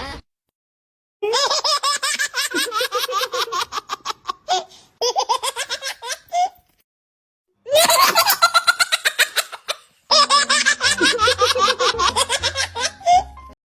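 Baby laughter sound-effect clips played back to back: four separate bouts of rapid, high-pitched giggling and belly laughs, each ending in a sudden cut to silence before the next clip starts.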